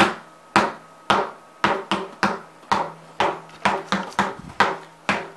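A run of sharp knocks, about two a second and a little uneven, each with a short ringing tail.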